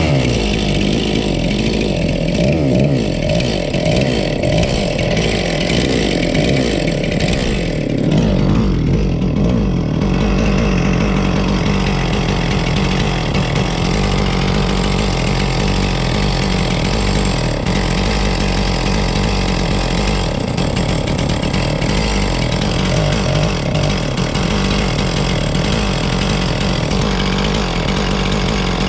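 Husqvarna 257 two-stroke chainsaw engine firing up and running steadily, being tested after its carburetor's low-speed mixture screw was set back a turn.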